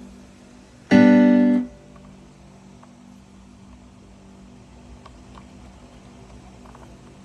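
Akai MPK Mini Play's built-in sound engine playing a single note about a second in, a bright tone rich in overtones held for under a second and cut off abruptly when the key is released. After it there are only a few faint ticks over a low steady background.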